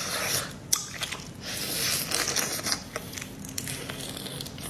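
Close-up eating sounds of a person biting and sucking on a marinated shrimp: wet, hissy slurping with sharp clicks of the shell, the sharpest about three-quarters of a second in.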